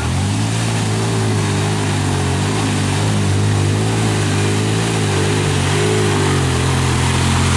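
A four-wheeler ATV engine is held at high, steady revs while the quad churns through a deep mud hole. The pitch wavers slightly as the wheels slip and grip, over the hiss of spraying mud and water.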